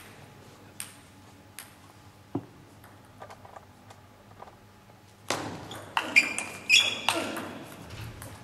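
A table tennis ball knocking sharply off bats and the table in a fast rally, beginning about five seconds in after a few sparse ball taps.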